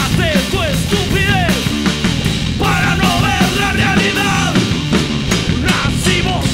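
Punk rock band playing live, loud and driving, with drums.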